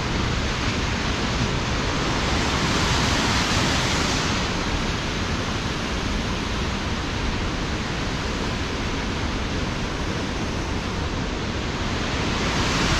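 A large waterfall rushing steadily: a constant, even wash of noise.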